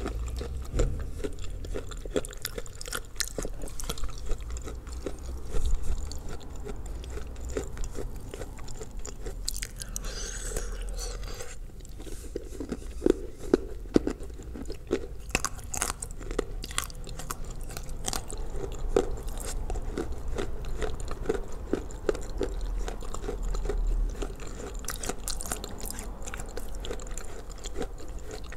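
Biting and chewing crunchy chunks of Ural clay soaked in blue Uzbek clay: a steady run of crisp crunches and wet chewing, with a few louder bites about five and thirteen seconds in.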